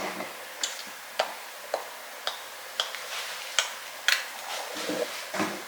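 A series of short, sharp clicks, about two a second and fairly regular at first, growing less even near the end.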